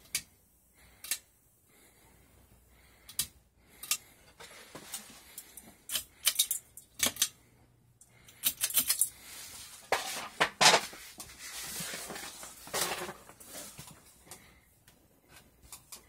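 A string of sharp clicks and light metallic clinks, some in quick clusters, with rattling stretches partway through: a ceiling fan's pull-chain switches being pulled and the chains clinking, as the light is switched on and the fan started.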